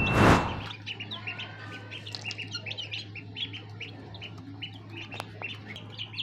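A brood of desi chicks and ducklings peeping: many short, high chirps overlapping throughout, over a steady low hum. A loud, brief burst of noise comes right at the start.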